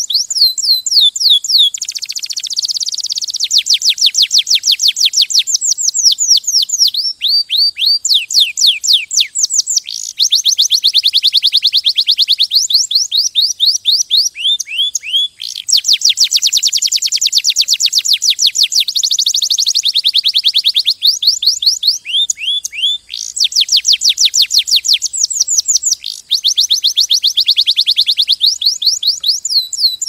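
Domestic canary singing a long, high-pitched song of rolls and trills: phrases of quickly repeated falling notes, some fast and packed, some slower, changing every second or two with only brief breaks.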